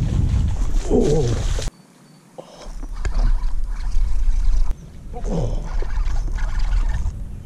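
Wind buffeting an outdoor camera microphone, in short clips that cut off abruptly. A falling glide sounds twice, about a second in and again past five seconds.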